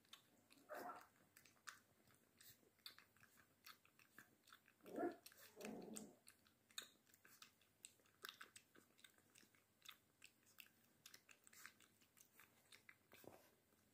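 American Staffordshire Terrier puppy lapping milk from a small plastic bowl: quiet, irregular wet clicks several times a second, with a couple of louder short bursts about five seconds in.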